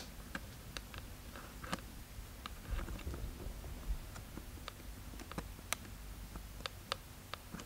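Faint, irregular small clicks and light scrapes of a 35 mm film cartridge and take-up spool being worked down into a Leica III's metal body, with a sharper click right at the start.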